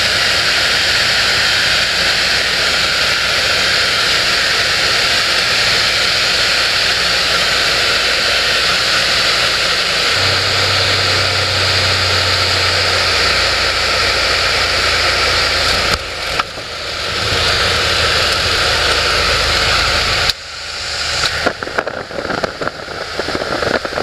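Cabin noise of a single-engine propeller light aircraft on approach and landing: the engine and propeller run steadily under a heavy hiss of rushing air. About twenty seconds in, the noise drops sharply and turns uneven.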